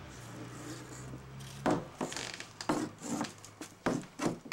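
A toddler's oversized adult high-heeled shoes knocking on wooden porch boards as she shuffles around, a string of uneven knocks starting about a second and a half in.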